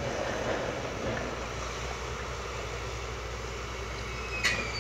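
Steady diesel engine rumble of heavy machinery working at a distance, an excavator and a dump truck. About four and a half seconds in comes a single sharp knock with a short falling whistle after it.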